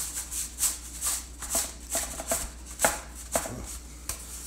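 Cardboard rod shipping tube being worked at to get the rods out: a string of short rustling, rattling strokes, about two a second, unevenly spaced.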